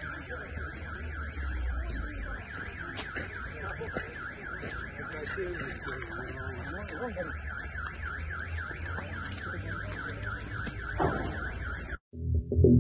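Car alarm sounding with a fast, even warble that repeats without a break. Near the end it cuts off abruptly and electronic music begins.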